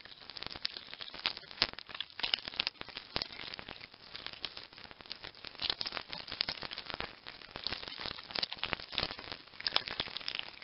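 Dense, irregular crackling and rustling, many small clicks close together with a few louder snaps. It is the sound clip set to the Macleay's spectre stick insect card.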